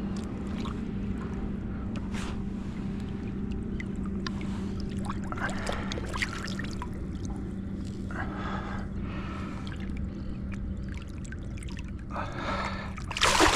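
Outboard motor idling steadily at a low hum, with intermittent water splashing and trickling as a striped bass is released over the side of the skiff.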